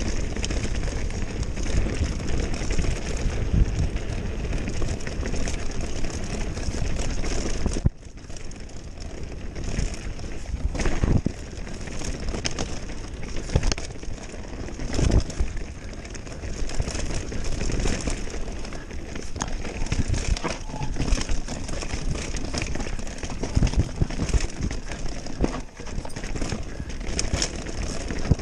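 Mountain bike descending a dirt forest singletrack at speed: a steady rush of wind and tyre noise, with the rattle of the bike and sharp knocks as it runs over stones and roots. The rush drops suddenly about eight seconds in, and a cluster of knocks comes near the middle.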